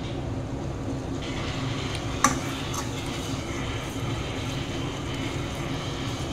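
A metal spoon stirs thick curry masala in an aluminium kadai, scraping through the paste, with a sharp clink of spoon on pan about two seconds in. A steady low hum runs underneath, and a faint sizzling hiss begins about a second in.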